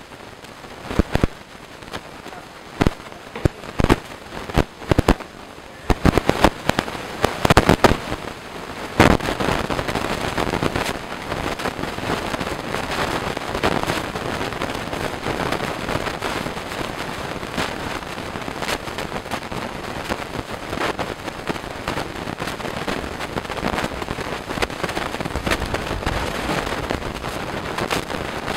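Kitchen clatter of dishes and utensils at a stove: sharp knocks and clinks for the first nine seconds or so, then a steady rustling, crackling noise of spoon and bowl work over the jam pot.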